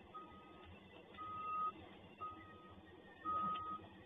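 A vehicle's reversing alarm beeping: a steady high beep about half a second long, repeated about once a second, four times, over low background noise.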